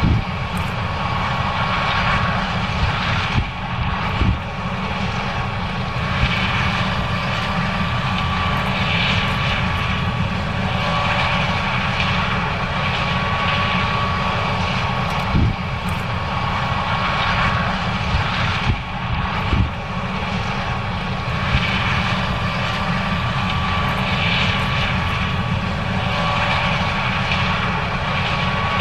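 John Deere S790 combine running steadily while harvesting corn: a constant engine drone with a steady high whine, and a few brief knocks.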